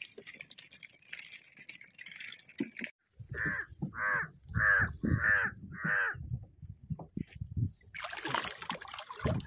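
A crow cawing five times, one call about every 0.6 seconds. Water splashes near the end.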